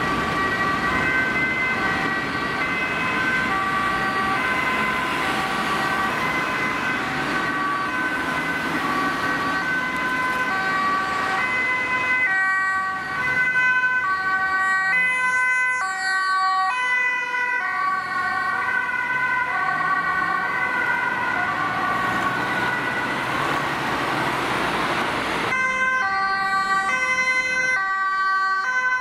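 Ambulance two-tone siren on a Mercedes-Benz Sprinter ambulance, stepping back and forth between a high and a low note on an urgent run. Road and engine noise is heavy through much of it; the siren stands out clearly near the end.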